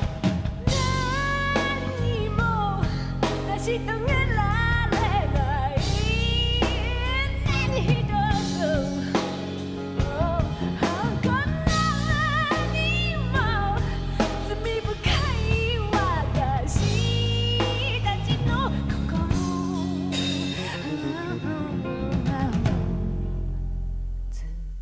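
A woman singing a Japanese ballad in a clear, wavering voice, accompanied by grand piano and a drum kit. The music fades down near the end.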